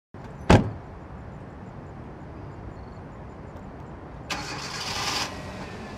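A car door slams shut on a small hatchback, followed by a steady low rumble; a little over four seconds in, the engine cranks and starts for about a second, then settles into a steady idle.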